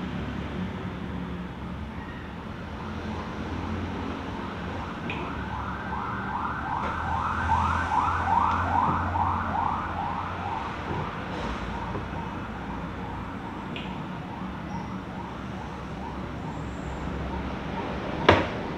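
A siren sounding in a fast repeating yelp, about two rising sweeps a second, that grows louder to a peak about eight seconds in and then fades away. Near the end, one sharp chop of a cleaver on a wooden chopping block.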